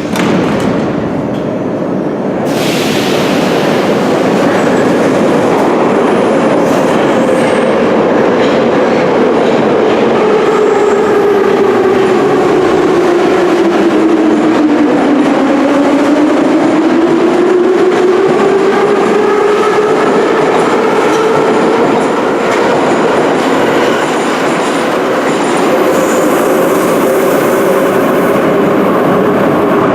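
Ezh3/Em-508T subway train running at speed, with loud rumbling rail noise and a whine that falls in pitch towards the middle and rises again as the train slows and then picks up speed.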